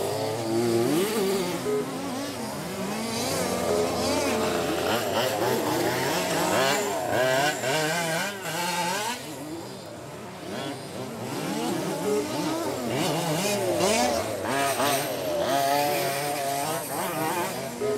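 Several 1/5-scale petrol RC off-road buggies racing, their small two-stroke engines revving up and down over one another in an overlapping, chainsaw-like buzz.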